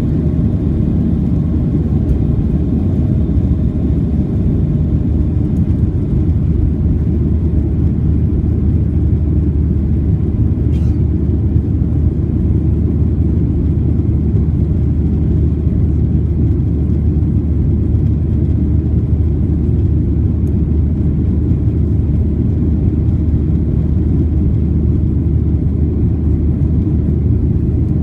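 Steady low rumble of a Boeing 737-700 jet airliner with its CFM56 turbofan engines running, the sound holding even throughout.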